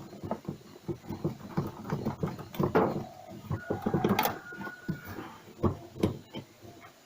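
Irregular clicks, knocks and scrapes of metal parts being handled and worked loose while a washing machine's drive assembly is taken apart, with a brief high squeak about four seconds in.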